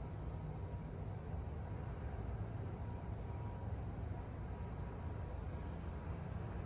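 Outdoor ambience: a short, high chirp repeats about once a second, typical of an insect such as a cricket, over a low steady rumble.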